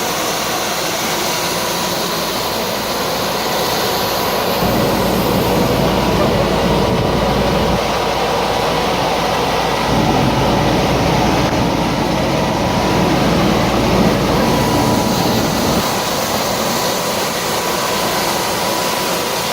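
Vacuum sweeper running at work: a loud, steady rush of suction with a thin whine, and a deeper rumble that swells from about four seconds in and drops back near sixteen seconds.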